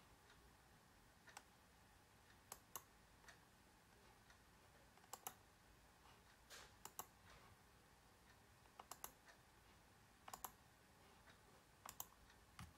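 Faint computer mouse clicks, mostly in quick pairs, repeating about every one to one and a half seconds.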